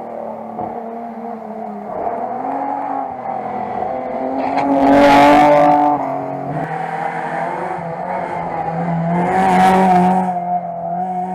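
Rally car engine heard on board at stage pace, its revs rising and falling through gear changes. Two loud rushes of noise come about five and about nine and a half seconds in.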